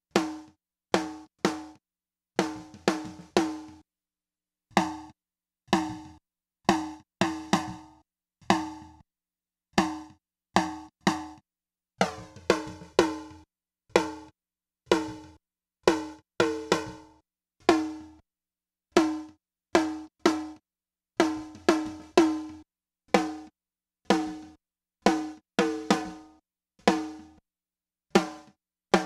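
Repeated snare drum hits from two microphone tracks summed with a few milliseconds of delay on the second, producing phase cancellation (comb filtering). The tone shifts as the delay time is changed.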